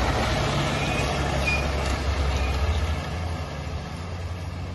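Fire ladder truck's engine running with a heavy low rumble as it drives close past and pulls away, the sound fading over the last couple of seconds.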